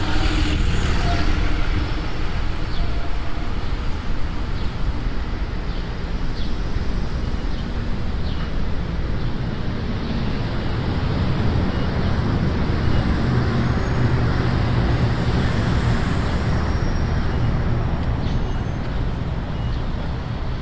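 City street traffic: cars and trucks running past with a steady low engine and tyre rumble; a low engine hum grows a little stronger about two-thirds of the way through.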